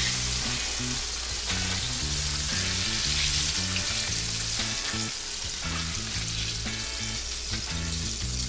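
Breaded sea trout pieces frying in a skillet of hot oil: a steady sizzle, over background music with a changing bass line.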